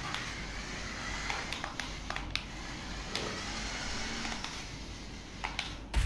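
Small electric motor of a toy remote-control car running as it drives over a tiled floor, with a few light clicks and taps scattered through.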